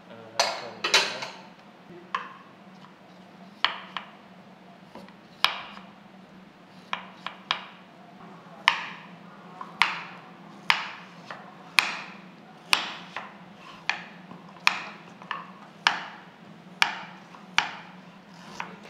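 Chef's knife slicing a root into rounds on a wooden cutting board: a sharp knock of the blade on the wood with each cut, irregular at first and then about one cut a second.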